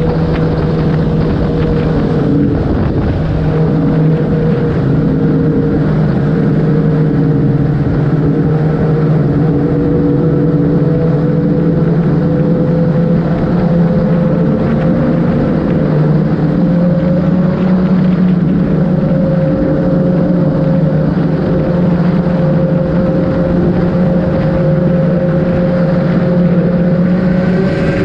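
Kawasaki ZX-10R's inline-four engine running at a steady cruise, heard on board over a steady rush of wind and road noise. Its pitch holds nearly level and rises slightly about two-thirds of the way in.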